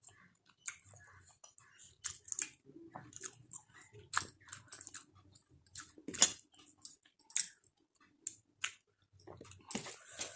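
Close-up chewing and biting of a rice-and-curry meal: irregular wet mouth smacks and small crunches, a sharper one about six seconds in.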